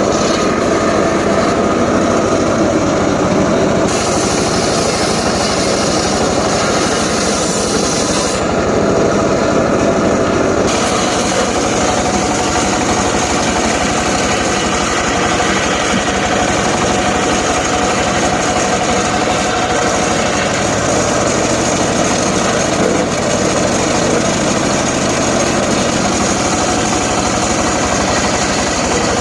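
Homemade engine-driven circular saw running continuously while cutting johar wood. Its sound shifts about 4, 8 and 11 seconds in, as the load on the blade changes.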